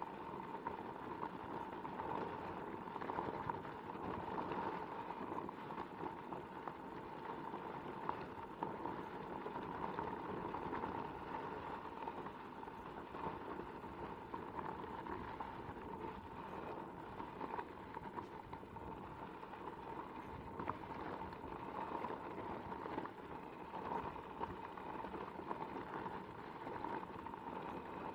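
Onewheel XR's tire rolling over loose gravel: a continuous crunchy crackle of small stones, with the hub motor's steady whine underneath.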